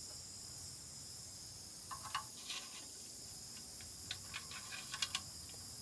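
A steady high hiss with scattered light clicks and taps as fingers handle the small plastic-and-metal toy steam boat.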